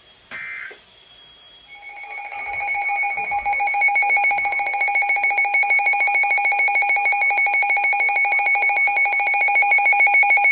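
A short buzzy data burst of alert-header tones, then about two seconds in a loud electronic alert alarm starts: a rapidly pulsing tone at two pitches, from a weather-radio alert receiver, signalling an incoming warning.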